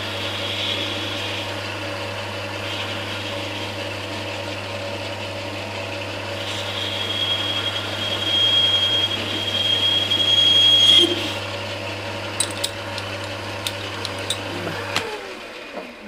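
Sieg C6 metal lathe running with a steady motor hum as a boring bar cuts into a spinning aluminium workpiece. From about six to eleven seconds in the cut gives a loud, high-pitched squeal. A few sharp clicks follow, and near the end the motor is switched off and runs down.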